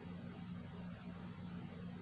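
A steady low hum over faint even hiss: room tone.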